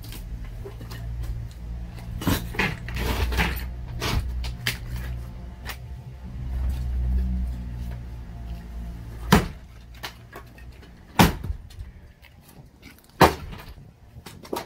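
Garage demolition work: a steady low engine rumble with scattered knocks and creaks, then three loud sharp cracks or impacts about two seconds apart after the rumble fades.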